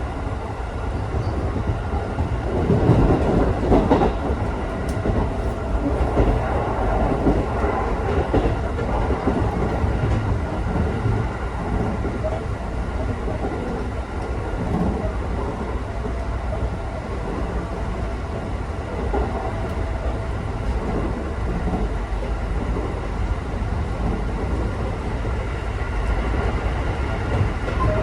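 Electric local train running, heard from inside the carriage: a steady rumble of wheels on rail with faint steady tones over it, and a louder stretch of clatter about three to four seconds in.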